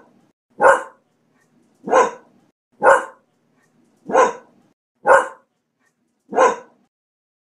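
A dog barking, six single barks spaced about a second or so apart with silence between them.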